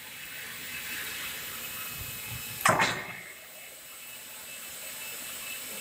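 Automatic pallet stretch-wrapping machine running with a steady mechanical hiss and whir. One loud, short clack comes a little under halfway through.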